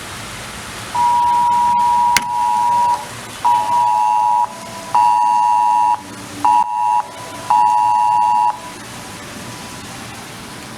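Emergency alert attention tone for a tornado warning: a loud steady two-note beep, first held for about two seconds, then repeated in shorter one-second beeps with half-second gaps, stopping a little past two thirds of the way through. A sharp click comes about two seconds in.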